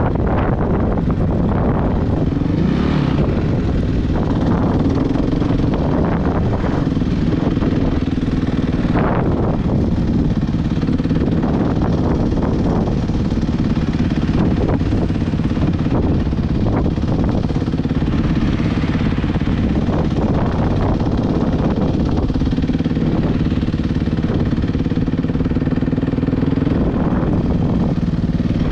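Suzuki RM-Z450 single-cylinder four-stroke dirt bike engine running under way, its revs rising and falling as it is ridden. Short knocks and clatter come through now and then over the engine.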